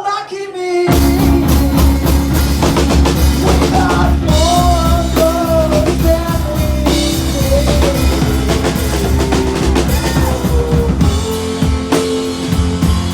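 Live rock band playing loudly: drum kit with kick and snare, bass, and a singer's melody line; the low end drops out for a moment right at the start before the full band comes back in.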